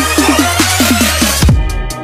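Electronic dance music with heavy kick drums and a bass line. About one and a half seconds in, the full mix drops away, leaving sparser drum hits.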